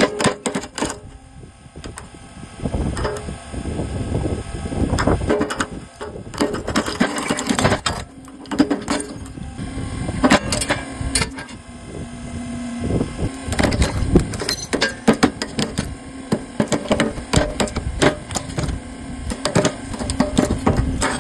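A hydraulic press slowly crushing a cast-metal diesel injection pump: repeated sharp cracks and snaps as the pump housing breaks apart under the ram. A low steady hum comes in about halfway through.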